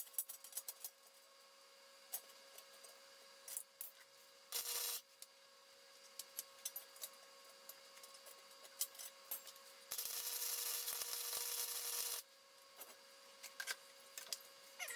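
Electric arc welder working on steel: a short burst of arc crackle about a third of the way in, then a steadier crackling weld of about two seconds past the middle, with scattered metallic clicks and taps between.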